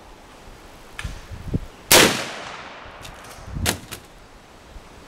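.357 Magnum gunshot about two seconds in, loud and sharp with a long trailing echo. A second, much quieter sharp crack follows over a second later. Some low knocks come just before the shot.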